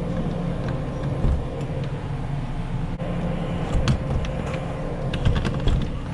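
Steady low mechanical rumble, like an idling vehicle engine, with a few sharp clicks and taps about four seconds in and again near the end.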